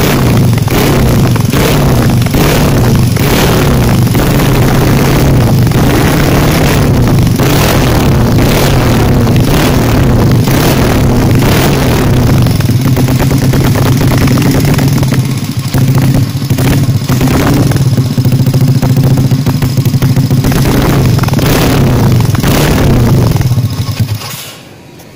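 Bored-up Yamaha Jupiter single-cylinder four-stroke motorcycle engine running through a BRS aftermarket exhaust with a stainless header and a long RCB-style silencer, idling with repeated quick throttle blips. The engine is switched off near the end and the sound cuts out suddenly.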